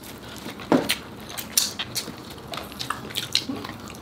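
Cutlery clicking and tapping against a plate at irregular moments, four or so short sharp clicks.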